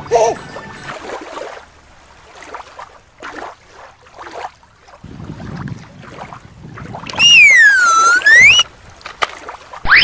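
Faint outdoor wind and water noise, then a loud whistle-like sound effect that glides down and back up for about a second and a half, followed near the end by a quick rising whistle.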